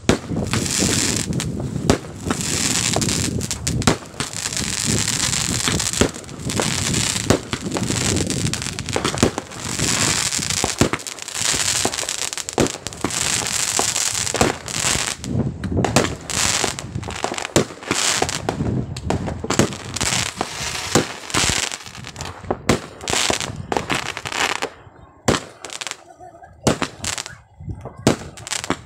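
Fireworks bursting overhead: bang after bang in quick succession with long stretches of dense crackling. In the last few seconds the crackling dies away and only scattered separate bangs remain.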